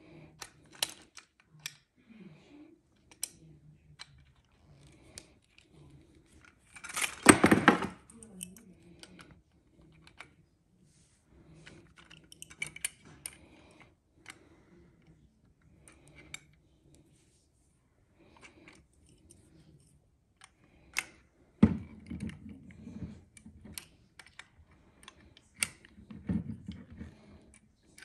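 Adjustable wrench clicking and ticking against metal fittings as quick-disconnect air couplers are threaded into an air filter-regulator unit, in scattered small clicks, with one louder, longer burst of noise about seven seconds in.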